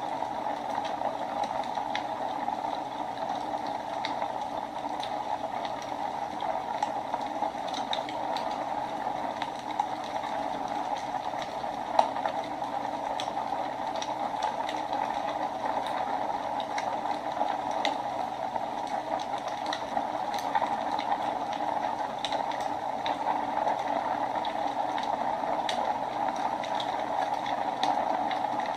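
Wood fire burning in a fireplace: a steady hiss with scattered small crackles and pops, one louder pop about twelve seconds in.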